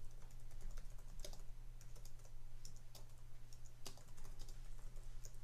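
Typing on a computer keyboard: scattered, irregular keystrokes as a short line of text is entered.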